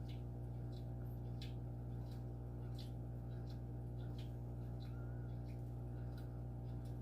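A steady low hum with faint, scattered ticks and clicks; no snoring rises and falls through it.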